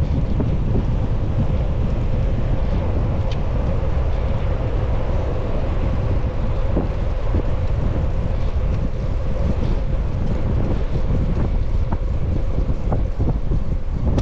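Wind buffeting the microphone as a loud, steady low rumble, with a faint steady hum underneath and a few light clicks.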